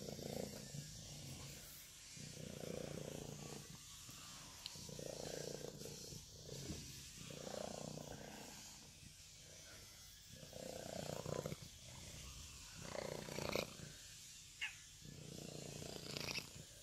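A tortoiseshell kitten purring loudly and continuously, the rumble swelling and easing with each breath about every two to three seconds.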